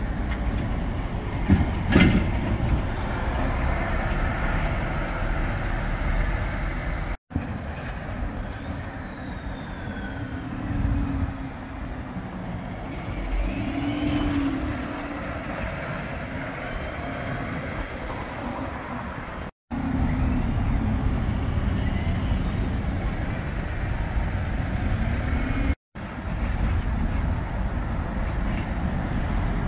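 Stagecoach double-decker and single-decker buses running past at close range in a city street, their engines rumbling over traffic noise, with a sharp sound about two seconds in. The sound breaks off briefly three times where the footage cuts between buses.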